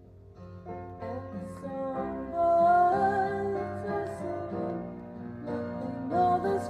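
Piano ballad: soft sustained piano chords, with a female voice singing over them from about two seconds in.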